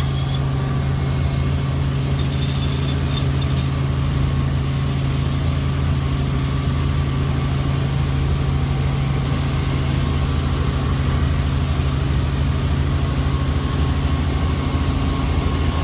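Helicopter engine and rotor running with a steady low drone.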